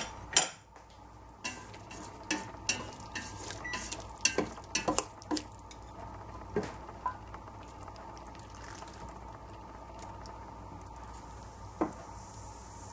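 A metal ladle and chopsticks clinking against a stainless steel pot and a ceramic bowl as cooked bok choy is scooped out: a quick string of sharp clinks in the first half, then a few single knocks. Near the end a soft hiss, as the pot is tipped and its last contents poured into the bowl.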